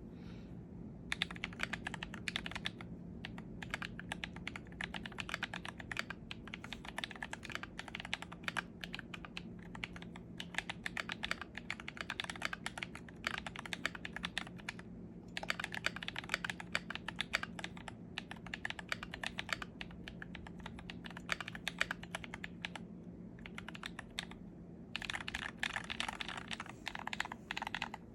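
Fast typing on a mechanical keyboard fitted with GMK keycaps: dense runs of key clacks starting about a second in, broken by a few short pauses, over a steady low hum.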